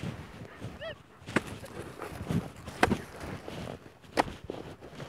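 Steel spade digging into firm stubble-field soil: crunching scrapes of the blade in the earth, with three sharp strikes about a second and a half apart.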